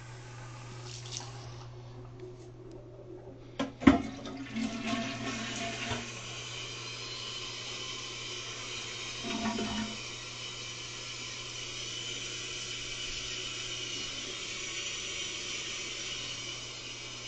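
Toilet being flushed: a sharp clunk of the handle about four seconds in, then water rushing and running steadily as the tank refills.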